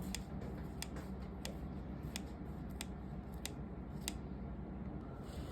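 Faint, irregular light clicks from work on the piano's action, about a dozen of them, with no piano notes sounding.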